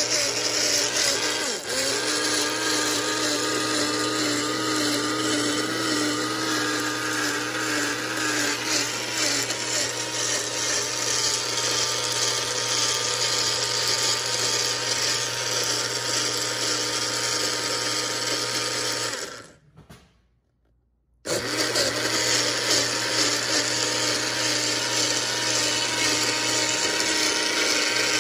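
Mainstays personal blender's motor running steadily, chopping pomegranate in the cup. About two-thirds of the way through it winds down and stops for a couple of seconds, then starts again abruptly and runs on.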